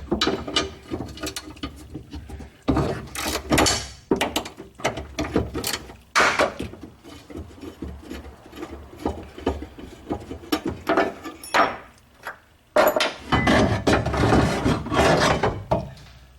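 Irregular metallic knocks, scrapes and rattles as a car door's window regulator (winder mechanism) and its bracket are unbolted and worked out through the door, with the mechanism's gears and arms clattering against the door shell. The handling is busiest for a few seconds near the end.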